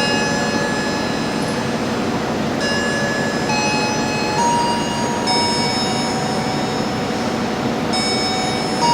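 A passenger train running through a station: a steady rumble of wheels on rail, with several high, steady ringing tones over it that shift pitch every second or so.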